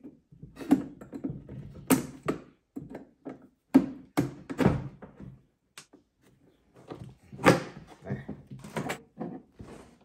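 Hard plastic knocks and clunks, several in a row, as the old glove box is pried and popped out of a Polaris Ranger's plastic dash.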